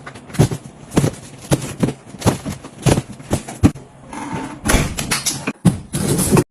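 Household objects being handled: a quick run of sharp knocks and clicks, about two a second, then a couple of seconds of denser scraping and rustling that cuts off suddenly.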